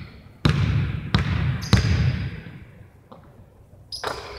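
Basketball bouncing three times on a gym floor after dropping through the hoop, each bounce a deep thud that echoes around the hall. The bounces come a little closer together as they fade, and a brief high squeak comes near the end.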